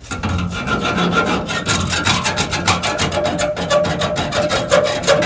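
Hand saw worked rapidly back and forth against the microwave's metal casing: a fast, even rasping, about five strokes a second, with a faint metallic ringing running through it.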